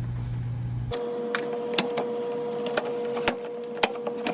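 Sharp irregular clicks and snaps, about six over three seconds, as a pry tool pops the plastic retaining clips of an FJ Cruiser's rear door trim panel. A steady hum runs underneath, changing to a higher pitch about a second in.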